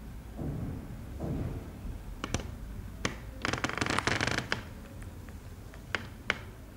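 Plastic floor sheeting crackling and clicking under a hand: two soft low thuds, then scattered sharp clicks, a dense burst of crinkling about halfway through, and two more sharp clicks near the end.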